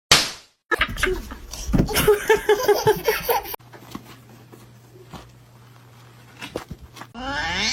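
A person laughing in a quick run of short repeated bursts, followed by a quieter stretch with a steady low hum and a few clicks.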